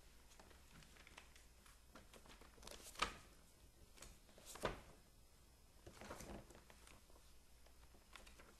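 Near silence: a steady low hum with a few scattered faint clicks, the sharpest about three seconds in and another just before five seconds, then a short cluster of softer ones a little after six seconds.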